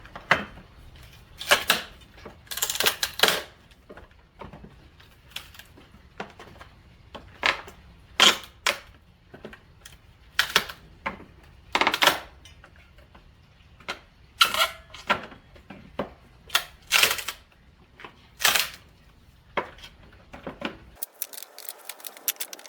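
Pallet boards being pried off with a homemade steel-pipe pallet buster: an irregular series of about a dozen sharp cracks and knocks as the boards and nails give way.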